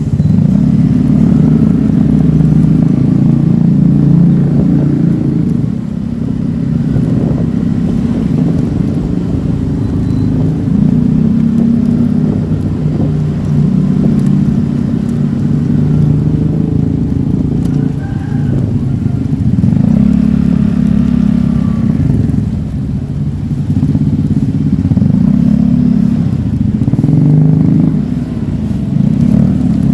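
Motorcycle engine running while riding, its pitch rising and falling repeatedly as the throttle opens and closes.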